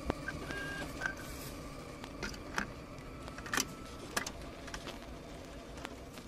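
Quiet ambient electronic music: held synth tones fade out within the first second, then short electronic beeps and a scattering of sharp glitchy clicks.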